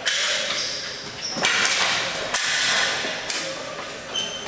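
Ball hockey play: four sharp clacks of sticks and the plastic ball striking, roughly a second apart, each ringing out in a long echo through the large arena.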